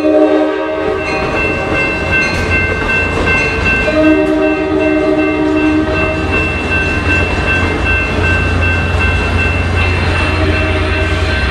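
Amtrak Pacific Surfliner passenger train departing, its bilevel cars rolling past with a steady high whine over the wheel noise. The train horn sounds twice: a blast that stops just after the start and another of about two seconds about four seconds in. The diesel rumble of the pushing F59PHI locomotive grows louder near the end as it draws close.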